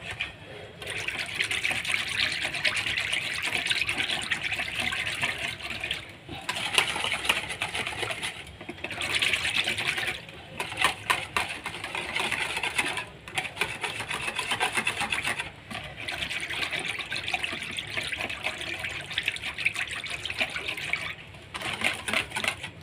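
Wire balloon whisk beating yogurt in a plastic bowl: rapid swishing and tapping strokes in runs of a few seconds, broken by short pauses.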